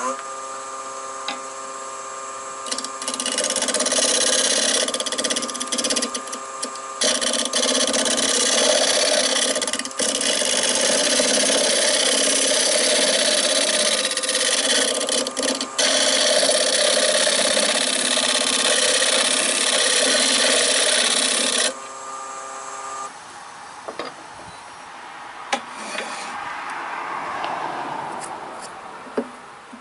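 Wood lathe running with a steady motor whine while a hand-held turning tool cuts into the spinning wooden block, deepening its bore, a loud shushing scrape from about three seconds in until a little past twenty seconds. Soon after the cutting stops, the lathe is switched off and the whine ends.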